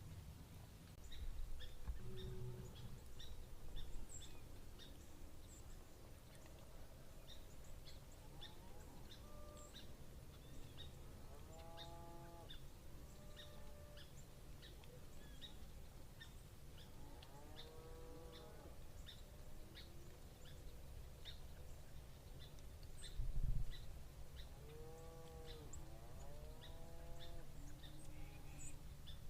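Distant cattle mooing several times, each call a drawn-out moo that rises and falls, with small birds chirping throughout. A single low thump about three-quarters of the way through.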